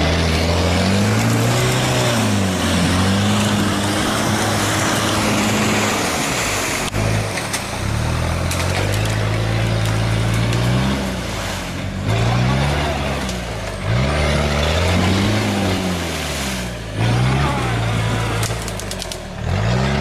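UAZ off-road vehicle's engine revving up and down repeatedly as it crawls through a muddy creek, with a run of quick throttle blips in the second half. Water and mud splashing underneath.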